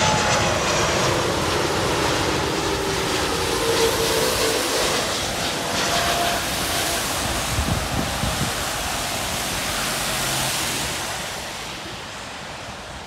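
Jet engines of an Airbus A330-200 on landing approach passing low, a loud steady rushing roar with a faint whine in it, dying away near the end as the aircraft moves off.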